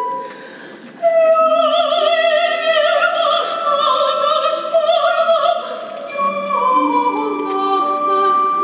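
Female opera singer singing a solo with wide vibrato over steady held notes from the orchestra; her voice comes in strongly about a second in.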